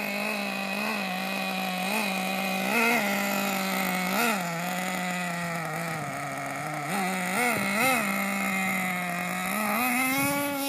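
Small nitro engine of a Team Associated MGT 3.0 radio-controlled monster truck running at low throttle, its pitch jumping up briefly every second or so as the throttle is blipped, then rising near the end.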